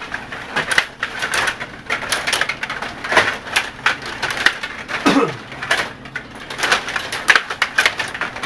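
Rod table hockey game in play: fast, irregular clicking and clattering of the rods and plastic players striking the puck.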